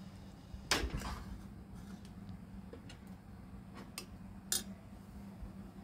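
A few sharp clinks and knocks of utensils against a metal cooking pot as thick gravy is stirred, the loudest under a second in and a quick cluster around four seconds in, over a steady low hum.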